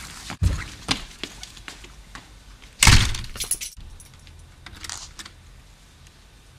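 A few knocks, then a sudden loud crash about three seconds in, followed by a brief rattle of small hard pieces.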